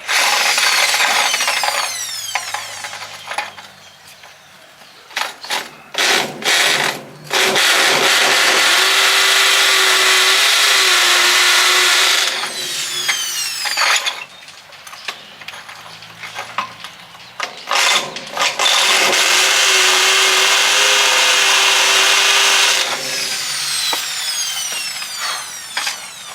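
Electric hammer drill with a masonry bit boring into a stone-filled concrete pillar: three long runs of drilling, each ending in a falling whine as the motor spins down, with quieter knocks and scraping between them.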